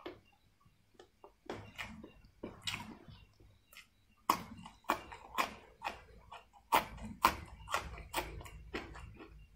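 Close-miked eating: crisp crunching bites and chewing of crunchy food, as irregular sharp crunches that start about a second in and come thicker in the second half.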